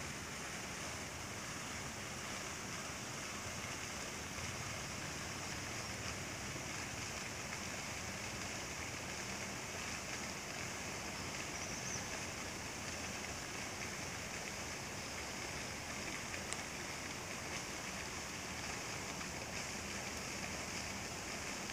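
Garden pond fountains splashing steadily, a constant rushing hiss of water jets falling back into the pond.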